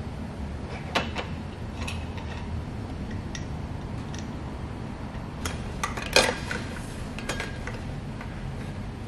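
Metal parts clinking and knocking as a pump-and-motor assembly is handled and set down on a metal mounting plate: scattered single clinks, the loudest knock about six seconds in, over a steady low hum.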